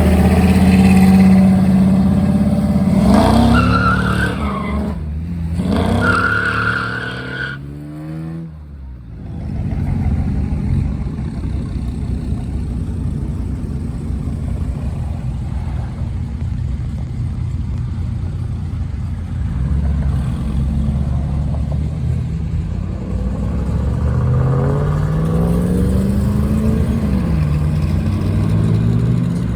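Car engine running loudly, revving up about three seconds in and accelerating away, its pitch stepping and falling until it fades at about nine seconds. Steady engine noise follows, and near the end another engine revs up and drops back.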